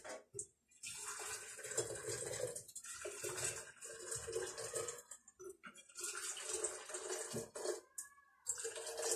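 Boiling water poured into glass jars in several short pours with brief breaks between them, a little into the bottom of each jar to scald and sterilise it before pickling.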